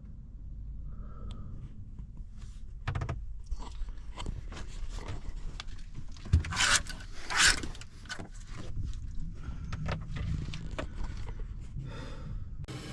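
Objects being handled at close range: scattered clicks, scrapes and rustles, with two louder swishes a little past halfway, over a low steady rumble.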